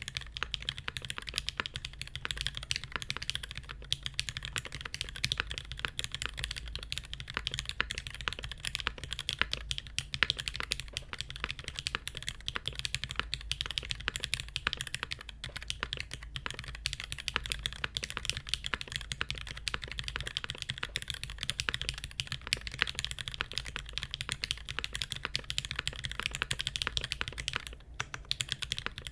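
Continuous fast typing on a Smith + Rune Iron180 mechanical keyboard: a brass plate with no dampening, broken-in lubed and filmed Cherry MX Black Hyperglide linear switches with 68 g springs, and GMK ABS keycaps. The keystrokes run in a dense unbroken stream, pausing briefly near the end.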